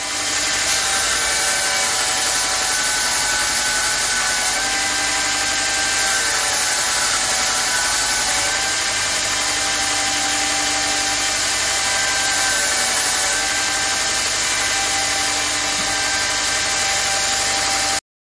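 Belt sander running, with a small wood-and-resin knife handle scale pressed against the abrasive belt: a steady motor whine under the hiss of sanding, with grinding tones that rise and fade as the piece is pressed and eased off. The sound cuts off suddenly near the end.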